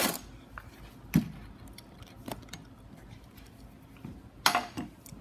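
Cardboard box handled on a workbench: one sharp knock about a second in as it is set down, a few light taps, then a short scraping rustle near the end as it is slid or adjusted.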